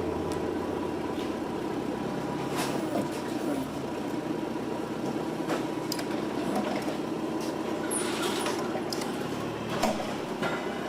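Machinery running steadily with a constant hum and a few sharp clanks, about three of them.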